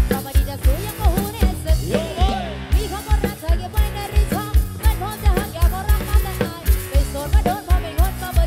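Live band music from a Thai sound-truck band: a drum kit drives a steady kick-drum beat, about three beats a second, under keyboard and a woman's winding, ornamented vocal line.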